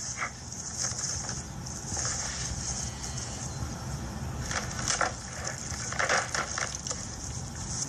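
Loose rocks tumbling and crashing down a slope in a rockslide, over a steady hiss, with louder clatters about four and a half and six seconds in.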